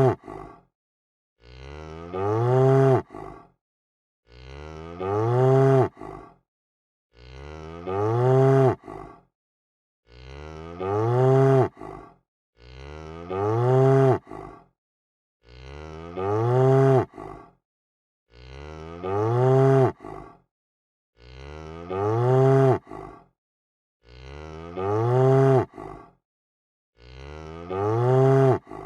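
A cow mooing: one identical moo repeated about every three seconds, with silence between. Each moo starts quieter, swells loud, and its pitch rises and then falls away at the end before it cuts off.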